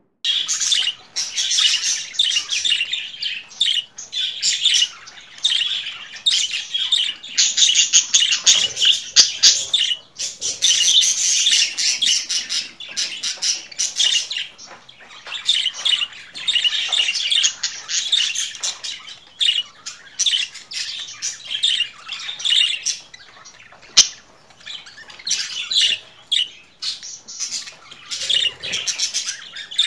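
Budgerigars chattering and warbling: a fast, near-continuous stream of high chirps and squawks with a few short lulls. A single sharp click about two-thirds of the way through.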